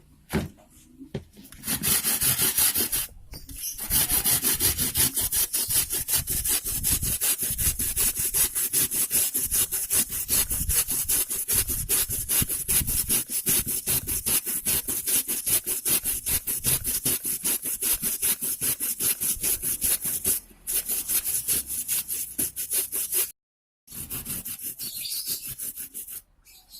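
Fresh turmeric root being grated by hand on a grater: a fast, steady run of scraping strokes with a few short breaks, weaker near the end.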